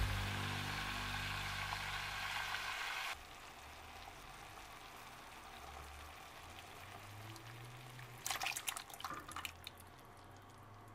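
Chicken, onions and peppers sizzling in a pot, a steady hiss that cuts off suddenly about three seconds in. About eight seconds in comes a brief burst of crackling.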